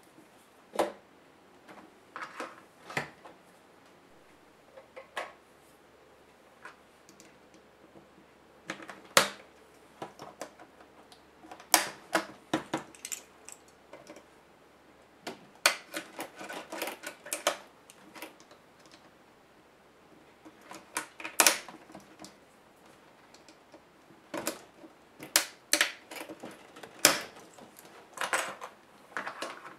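Irregular clicks, taps and light rattles from hands and a small screwdriver working on a laptop's plastic case and hinge area during disassembly, coming in uneven clusters with a few louder knocks.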